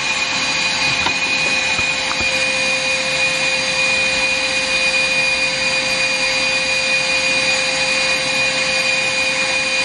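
An electric motor running steadily, like a vacuum: an even rush of air with a constant whine over it.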